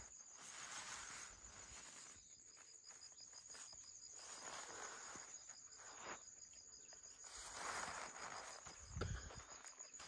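Insects trilling steadily in a high, rapid, evenly pulsed chirr, faint throughout. Soft swells of rustling noise come and go, and there is a low thump just before the end.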